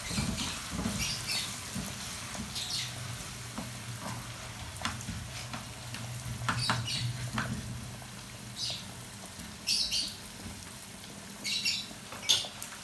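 Chopped carrots and green capsicum sautéing in oil in a steel pan: a steady sizzle with scattered sharp crackles, the strongest near the end, as a wooden spatula stirs them. A low steady hum runs underneath and fades out about nine seconds in.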